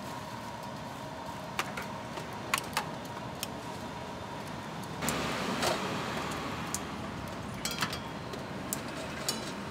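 Busy market ambience: a steady background hum with scattered short metallic clinks, and a louder wash of noise about halfway through.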